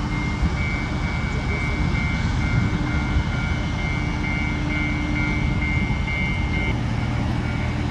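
Diesel-electric locomotive engine idling: a steady low drone with a thin high whine held above it.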